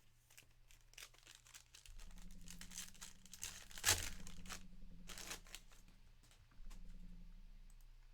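A trading card pack's wrapper being torn open and crinkled, with a run of crackles and one sharp rip about four seconds in.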